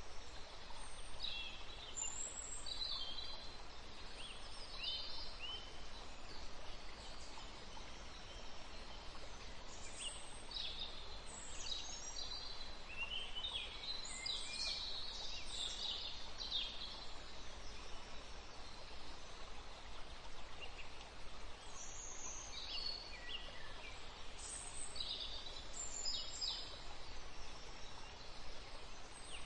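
Songbirds chirping and twittering in scattered bursts, busiest in the middle and again towards the end, over a steady hiss.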